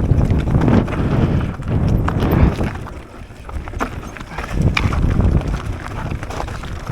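Mountain bike riding down a dirt trail: tyres rumbling over the ground with a dense clatter of knocks and rattles from the bike. It eases briefly about three seconds in, then picks up again.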